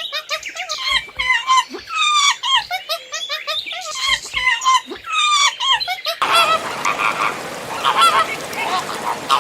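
A bird giving a rapid series of short honking calls, several a second. About six seconds in, the calls go on over a steady noisy background.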